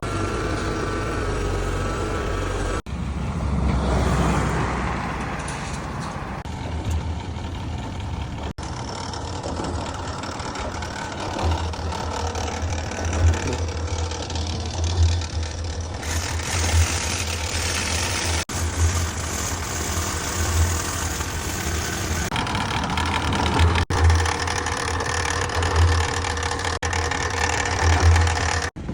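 Heavy vehicle or machinery engines running, with a steady low hum and the sound changing abruptly several times as one clip gives way to the next.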